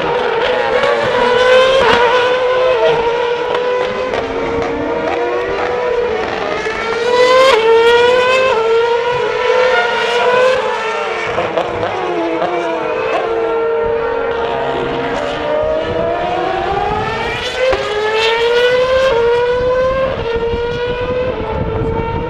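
Formula One cars accelerating through the gears, the engine pitch climbing and dropping back with each quick upshift, several cars overlapping. About fourteen seconds in, one engine falls in pitch as it slows.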